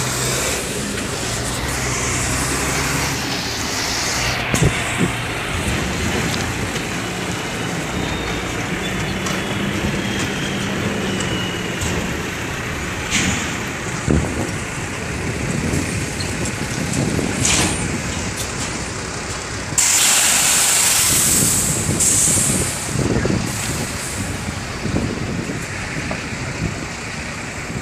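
Tractor-trailer pulling double loaded flatbed trailers, its diesel engine running slowly while maneuvering, with a loud hiss of the air brakes about twenty seconds in and shorter hisses after it.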